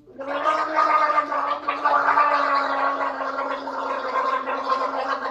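A person gargling, voicing one steady held pitch through a wet, bubbling gurgle: a mock drowning sound.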